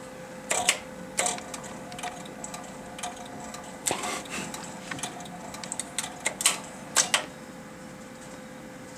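Push buttons and switching mechanism of a Studer C37 tube reel-to-reel tape recorder being pressed: a string of sharp mechanical clicks and clunks, most of them between about half a second and seven seconds in, as the tape-speed selector is switched between 15 and 7.5.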